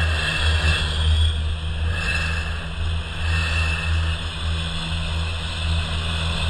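Diesel locomotives of a passenger train running, a steady low drone.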